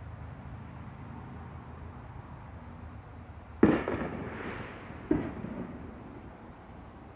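Two firework bangs about a second and a half apart, the first louder, each followed by a short echoing tail.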